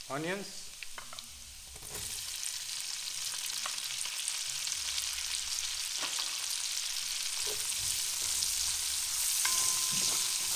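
Chopped onions and scallions going into hot oil: the sizzle jumps up about two seconds in and grows steadily louder. Near the end a wooden spoon starts stirring them in the pot.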